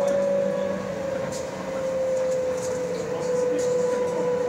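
Rubber-tyred Translohr tram running along its central guide rail, heard from inside the cab: a steady motor whine that slowly sinks a little in pitch, over a running rumble with a few light clicks and rattles.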